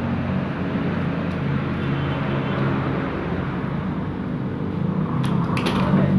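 Steady engine drone of a running motor vehicle, with a few sharp clicks about five seconds in.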